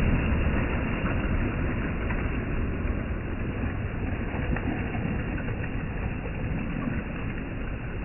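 Sea surf: small waves breaking and washing up and back over a pebble beach, a steady rush that slowly fades.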